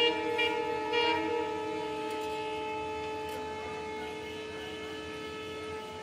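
Train horn sounding one long, steady blast of several notes at once, slowly fading toward the end.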